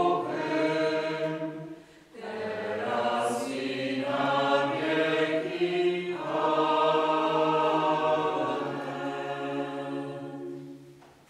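Choir singing in long held notes, with a short break about two seconds in; the last phrase fades away near the end.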